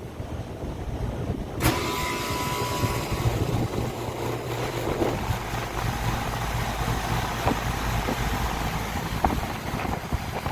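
Package air-conditioning unit starting up about a second and a half in, its condenser fan with a refitted blade coming on with a sudden whoosh and then running steadily. This is a test run to check the blade for wobble, and the fan runs without heavy vibration.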